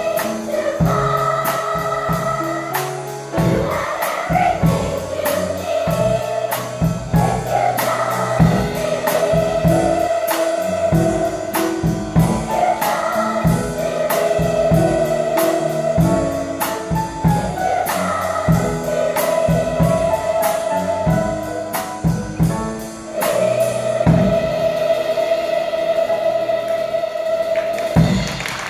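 Large children's choir singing with a drum kit keeping a steady beat, ending on one long held note over the last few seconds.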